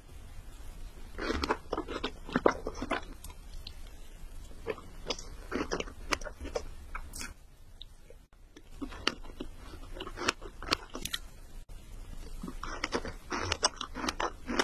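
Close-miked chewing and biting of strawberry cake by a dog: irregular clusters of wet, smacking bites, with a short pause a little past the middle.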